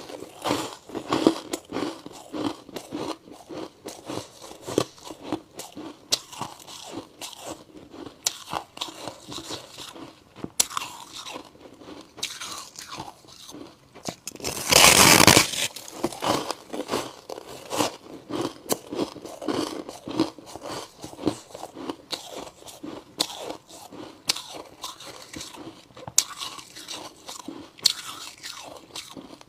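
White humidifier ice chunks being bitten and chewed: a steady run of crisp crunches, with one longer, louder crunch about halfway.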